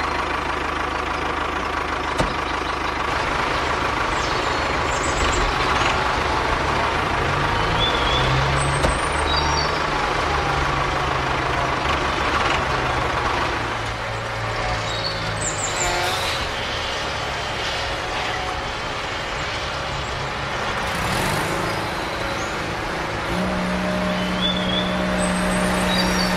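A vehicle engine running steadily under a constant hiss, its low note shifting a little partway through and settling into a steadier hum near the end. A few short, faint high chirps like birdsong.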